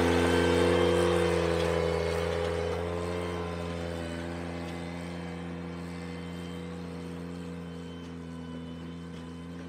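Ventrac compact tractor's engine running steadily while it drives along the driveway working its front power rake, growing fainter as it moves away.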